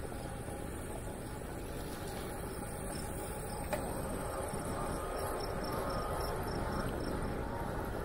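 Crickets chirping in a steady, evenly spaced rhythm, clearest in the second half, over a constant rush of wind noise on the microphone. A single short click comes about three and a half seconds in.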